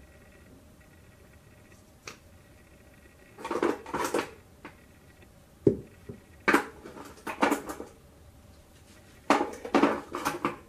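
Small makeup items and their packaging being rummaged through and handled, clacking and rattling against each other in three bursts, with a single tick about two seconds in and a dull knock near the middle.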